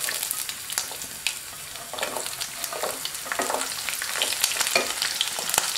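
Chopped ginger, garlic cloves and green chilli sizzling as they drop into hot gingelly (sesame) oil, with a steady hiss and many small crackling spatters.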